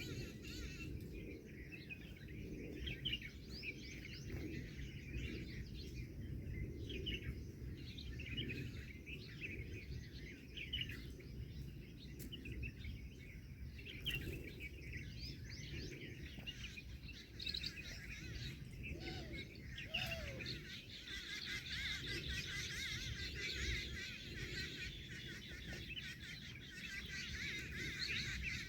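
Many birds chirping and calling together, short high chirps overlapping throughout and growing denser about three quarters of the way through, over a low steady background rumble.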